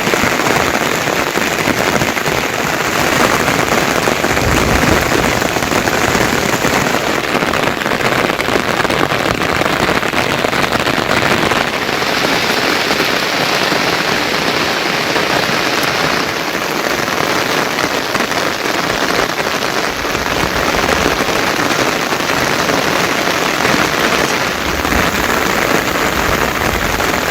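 Heavy monsoon rain falling steadily, a dense, even hiss, with a few short low rumbles.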